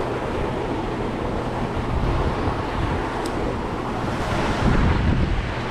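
Wind blowing across the microphone: a steady rushing noise, heaviest at the low end, with a single faint click about three seconds in.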